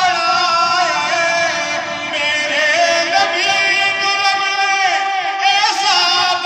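A man singing a naat, a devotional poem in praise of the Prophet Muhammad, solo and without instruments, with long held notes that slide up and down in pitch.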